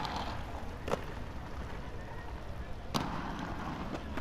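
Skate park ambience: skateboards clacking and slapping down on concrete, with hard hits near the start, about a second in and about three seconds in, the first and last trailing a short scrape, over a steady low rumble.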